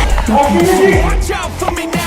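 Hip-hop style music with vocals over a heavy, pounding bass beat.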